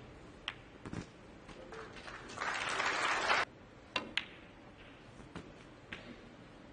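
Snooker balls clicking: sharp single knocks of cue on ball and ball on ball, half a dozen in all. A short burst of audience applause swells about two and a half seconds in and cuts off suddenly.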